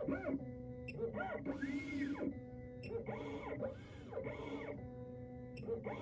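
XHorse Condor XC-Mini Plus key cutting machine running its automatic clamp calibration: its motors whine in repeated sweeps that rise and fall in pitch as the carriage moves, with a few light clicks.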